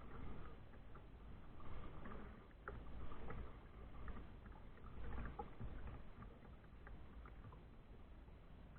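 Kayak being paddled: water swishing in soft swells about once a second, with a few faint clicks and a low rumble underneath.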